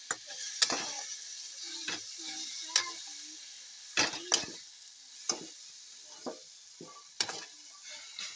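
Leafy greens and garlic sizzling in oil in a wok, with a steady hiss, while a wooden spatula stirs them, scraping and knocking against the pan in irregular strokes.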